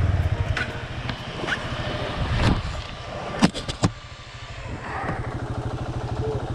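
KTM 390 Adventure's single-cylinder engine running at low revs, easing off around four seconds in and picking back up about a second later. A few sharp knocks sound between about two and a half and four seconds in.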